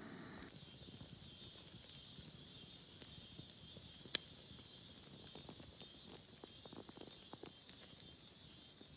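Insects in the forest chirring in a steady, high-pitched drone that starts suddenly about half a second in. Small light crackles from the wood fire come through, with one sharper snap about four seconds in.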